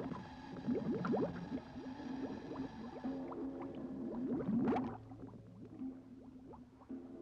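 Scuba air bubbles gurgling underwater, a quick run of short rising blips that is busiest in the first five seconds, with one big bubbling surge just before the five-second mark, then thins out, over a faint steady low hum.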